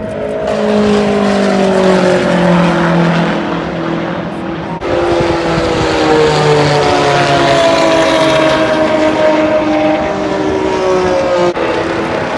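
Track cars at high revs passing on the speedway, the engine note falling as the first goes by, then a second car's engine taking over about five seconds in and drifting slowly lower.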